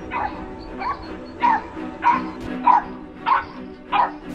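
Small dog barking about seven times in a steady series, a bit more than one bark a second, over background music.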